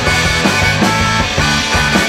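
Live band playing rock music, with a steady drum beat under sustained keyboard chords.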